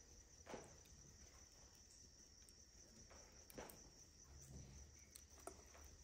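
Faint, steady high-pitched trill of crickets, with a few brief soft clicks about half a second in, midway, and near the end.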